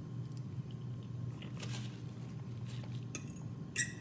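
Eating sounds: scattered small clicks and clinks of food and dishware being handled, with a sharper clink near the end, over a steady low hum.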